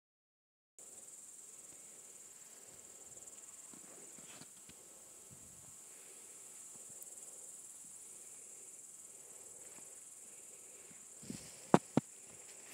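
Grasshoppers chirping, a steady high-pitched buzz. A few sharp knocks a little before the end are the loudest sounds.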